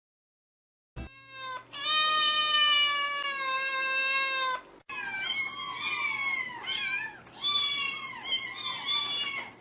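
A cat meowing. A short meow about a second in is followed by one long, steady, drawn-out meow, then, after a brief break, a quick run of shorter meows that each fall in pitch.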